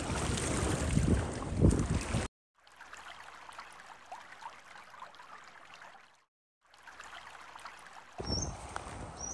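Wind buffeting the microphone over choppy open water. The sound cuts out abruptly about two seconds in, comes back much quieter, cuts out again briefly, and returns louder near the end with a few short high bird chirps.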